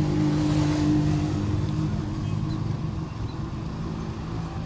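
A motor vehicle engine running close by with a steady low hum, loudest for the first two seconds and then easing off, over general street noise.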